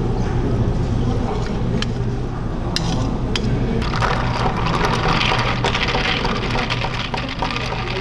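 Passion fruit syrup and espresso poured over ice, with a few sharp cracks and clicks from the ice. From about four seconds in, a long bar spoon stirs the ice in a tall glass of passion fruit soda: a dense clinking rattle of ice against glass. A low steady hum runs underneath.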